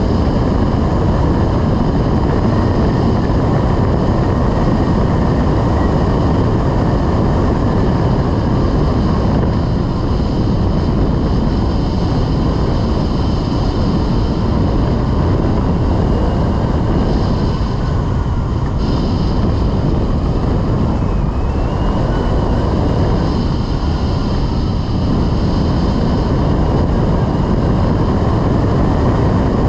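Steady rush of airflow on the microphone of a rigid-wing hang glider in gliding flight at about 30–34 mph.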